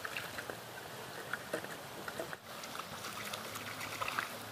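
Water splashing and trickling: scattered small, irregular splashes over a steady wash of running water.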